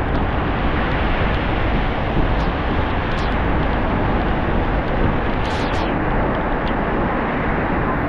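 Heavy tropical rain pouring down on a street: a dense, steady hiss of downpour, with a few brief higher-pitched sounds around the middle.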